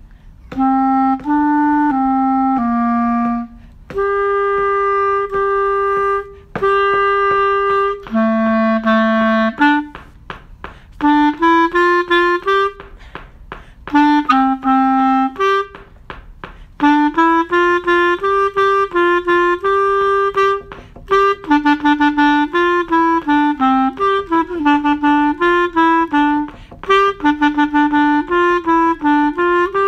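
Solo clarinet playing a band part unaccompanied: a single melody line of separate and longer held notes with short rests, turning to quicker runs of short notes after about ten seconds.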